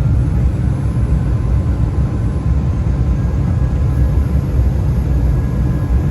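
Steady cabin noise inside an Embraer E175 regional jet in flight: a deep rumble of airflow and its twin turbofan engines, with a few faint steady tones above it.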